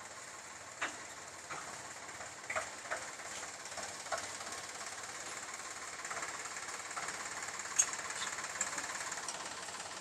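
An engine running steadily, with a few short, sharp knocks scattered through, the sharpest about a second in and near the end.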